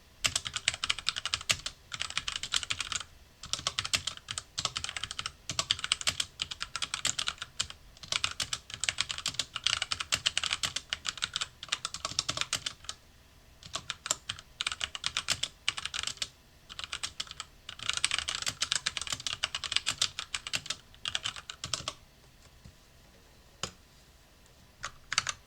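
HyperX Alloy Origins Core tenkeyless mechanical keyboard with HyperX Aqua tactile switches being typed on quickly, in bursts of rapid keystrokes separated by short pauses. The typing stops a few seconds before the end, leaving only a few single keystrokes.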